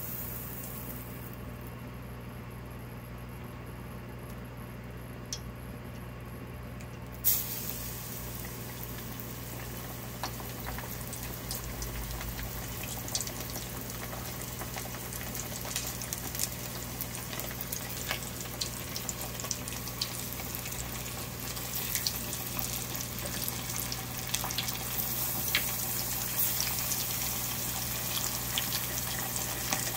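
Hot oil sizzling and crackling as a flour-dusted whole rockfish (arakabu) deep-fries in a pot. The sizzle comes in sharply about seven seconds in, with many small pops, and gets louder near the end.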